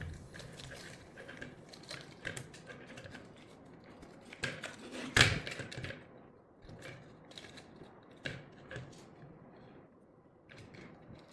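Small parts being handled and fitted by hand: irregular light clicks and taps, with one sharper, louder knock about five seconds in.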